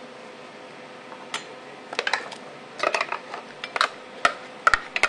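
A metal spoon scraping and knocking against a plastic food-processor bowl and a stainless steel mixing bowl while a thick, chunky mixture is spooned out. There are irregular clinks and taps, starting about a second and a half in and coming more often towards the end.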